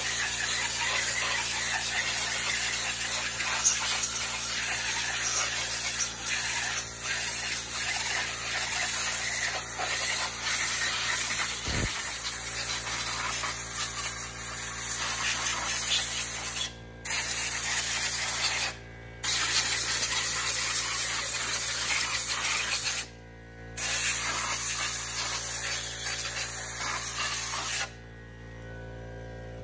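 Compressed air hissing steadily from an air nozzle as it blows out a small-block Chevy cylinder head, clearing loose dirt and leftover brake cleaner. The air stops briefly three times in the second half and cuts off near the end.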